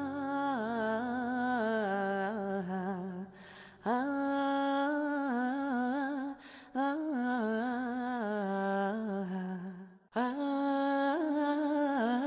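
Background music: a single voice humming or singing a slow, ornamented melody in long wavering held notes. It pauses briefly three times, about three and a half, six and a half and ten seconds in.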